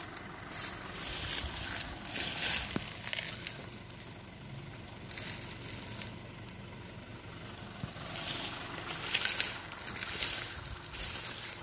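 Dry fallen palm fronds and grass rustling and crunching underfoot and under a hand. It is louder in two stretches, at the start and again near the end.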